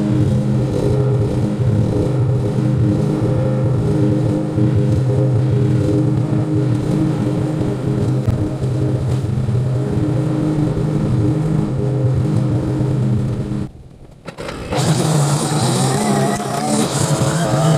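Small gasoline engine of landscaping power equipment running steadily at a constant speed. It cuts off abruptly near the end, then comes back about a second later with a brighter, wavering pitch.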